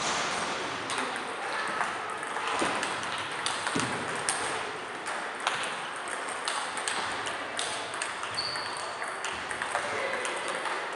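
Table tennis balls clicking against bats and table tops in doubles play, many sharp, irregular clicks overlapping from several tables at once.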